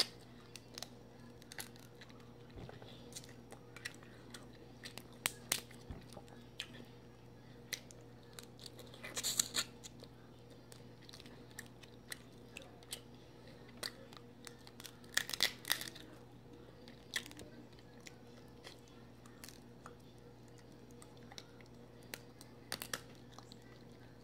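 Dungeness crab shell being cracked and picked apart by hand, with chewing: scattered short cracks and crackles, busiest about nine and fifteen seconds in. A faint steady hum lies underneath.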